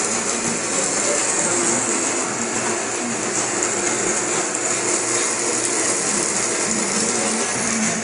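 Hot oil sizzling steadily as coated pieces fry in a pan.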